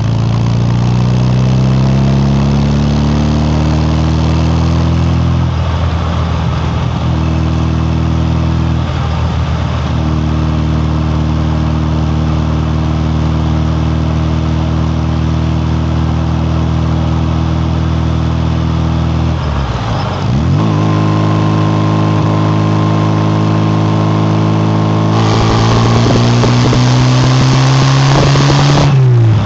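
Classic MG Midget's four-cylinder exhaust, heard close-up from the rear bumper while driving. The engine pulls up through the revs at first, then cruises steadily. The revs dip briefly and recover about two-thirds of the way through, a rushing hiss joins for the last few seconds, and the revs drop sharply right at the end.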